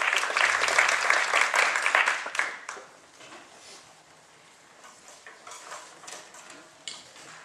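Audience applause dying away after about two and a half seconds, followed by a hushed room with a few scattered small knocks and rustles.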